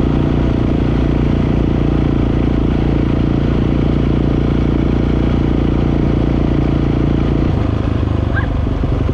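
Dirt bike engine running steadily under way, its note dropping about seven and a half seconds in.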